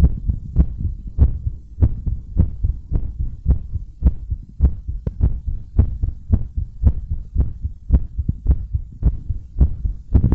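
A human heartbeat picked up through a homemade stethoscope: a headphone microphone pressed against the sternum under a polymer-clay cup. Regular low thumps come quickly, a little under two beats a second.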